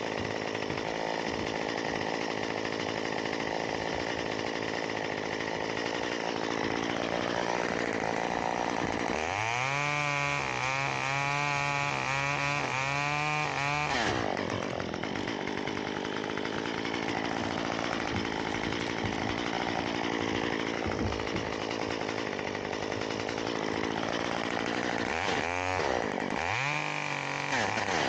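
Chainsaw running steadily, revved up about a third of the way in and held high for about five seconds, its pitch wavering, before dropping back; two short revs near the end.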